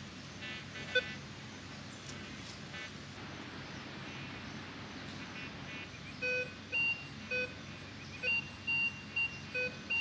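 Minelab Vanquish 540 metal detector sounding a run of short electronic target-tone beeps at differing pitches, about eight in the last four seconds, signalling buried metal under the coil.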